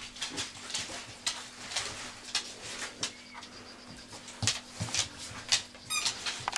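A puppy moving about on a bed, its paws scrabbling and rustling on the sheet in short irregular bursts and knocks, with one brief high squeak near the end.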